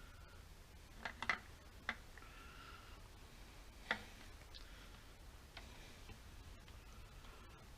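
A few faint, scattered clicks and taps from hands-on work at the engine. The sharpest comes about four seconds in.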